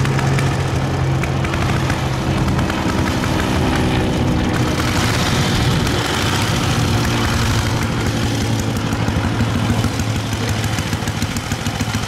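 Vintage-style racing motorcycle's engine running at low revs with a fast, even pulse; its pitch shifts a few seconds in.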